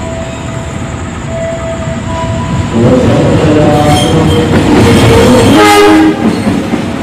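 CC206 diesel locomotive approaching with a steady rumble of engine and wheels, then sounding its horn loudly from about three seconds in for about three seconds, the chord shifting in pitch near the end.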